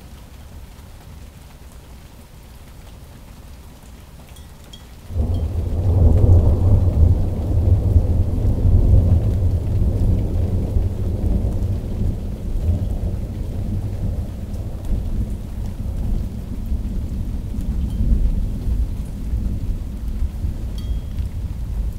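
Thunder: a sudden loud crack about five seconds in, which rolls on as a deep rumble and eases slowly through the rest.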